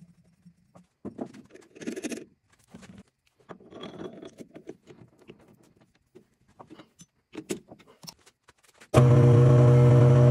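Metal parts and tools being handled at a metal lathe: scattered light clinks, taps and scrapes. About nine seconds in, a loud steady machine hum starts abruptly, the lathe running.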